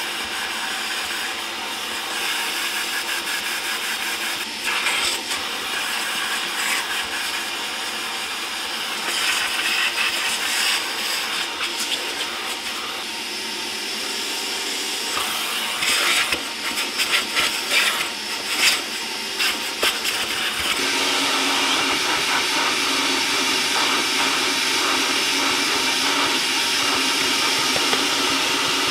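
A vacuum cleaner running steadily during interior cleaning, with a spell of clattering taps on hard plastic past the middle. About two-thirds of the way through the noise shifts to a louder, steadier sound.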